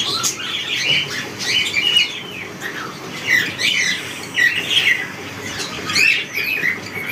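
Caged cockatiels chirping and squawking, many short overlapping calls several times a second.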